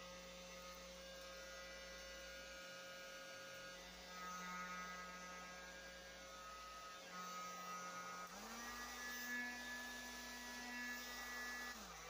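Handheld heat gun running with a steady motor hum. About eight seconds in its pitch steps up and holds, then it dies away at the very end.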